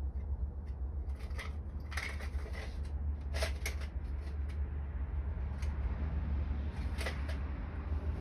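Scattered light clicks and metallic clinks of hand tools and small hardware being handled while working on the tank's handle, over a steady low hum.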